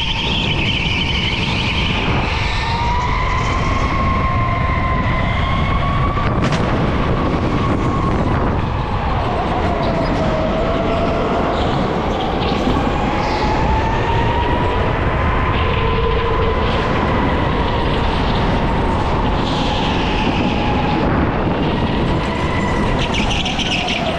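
Electric go-kart at racing speed: the motor's whine rises and falls in pitch as it speeds up and slows through corners, over a steady rumble of the wheels on the track. Tyres squeal briefly a few times in the corners.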